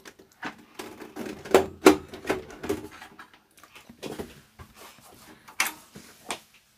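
Handling noise on a workbench: irregular knocks, clicks and rustles as equipment is moved about, with a short scrape about two seconds in.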